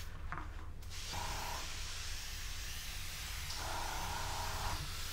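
An airbrush spraying a light mist of paint: a steady hiss of air that starts about a second in and keeps going, over a low hum.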